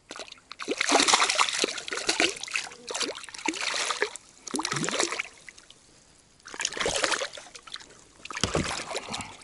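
Hooked crucian carp thrashing and splashing at the water surface in several bursts, the longest first, as it is drawn in and grabbed by hand.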